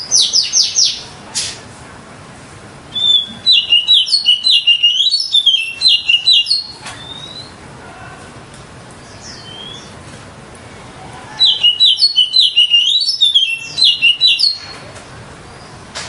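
Oriental magpie-robin singing: a short burst of notes at the start, then two long bouts of fast, loud, repeated high phrases, with faint chirps in the pauses between.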